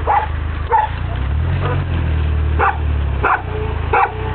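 A dog barking in short single barks, about five of them, over a steady low rumble.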